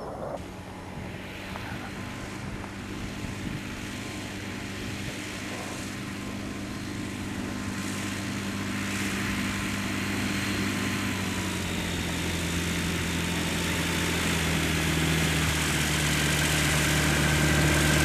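Ultralight airplane's propeller engine running at low taxi power, growing steadily louder as the plane rolls closer; its note drops a little past the middle as the power eases.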